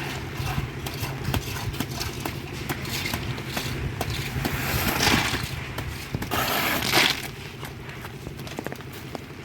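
Road concreting work: a machine engine runs steadily under scraping and knocking of tools and wet concrete, with two louder rushing scrapes, about five and about seven seconds in.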